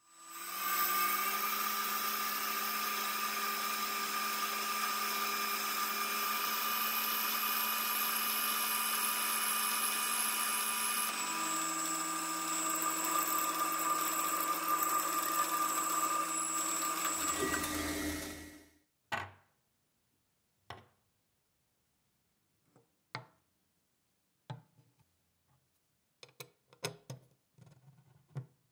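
Metal lathe turning a brass rod, its motor and spindle running steadily while the cutting tool peels off chips; the pitch shifts about eleven seconds in and the machine stops about eighteen seconds in. A few scattered light knocks and clicks follow.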